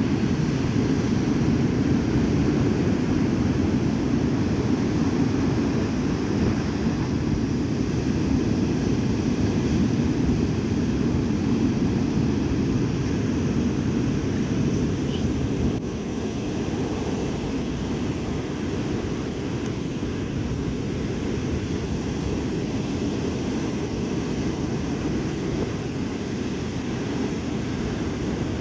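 Stormy sea surf: a continuous low rushing of waves breaking on the shore, slightly quieter from about halfway through.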